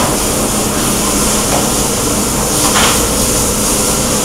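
High-frequency plastic welding press with auto conveyor running: a steady low hum under loud, even machine noise, with a short hiss about three seconds in.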